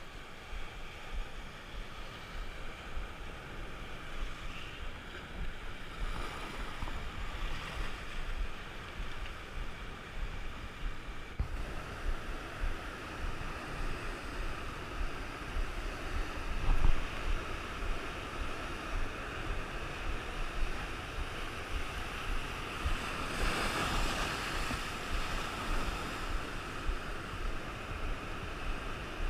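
Rough ocean surf breaking against the shore, a steady wash with rumbling low-end wind buffeting on the microphone. A brief thump about halfway through, and a louder surge of breaking wave later on.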